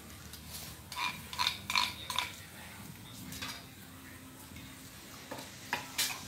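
A series of light, ringing clinks, like hard objects knocked together: four in quick succession about a second in, then three more near the end.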